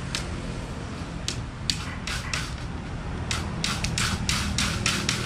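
Short, sharp scraping or snipping sounds of handwork on a mesh fish trap: about a dozen in irregular clusters, coming quicker near the end, over a steady low hum.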